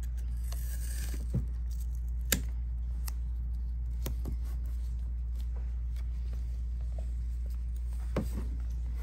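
Light handling noises of fabric and tape being pressed down on hooped fabric: a brief rustle of tape near the start and a few sharp light taps, over a steady low hum.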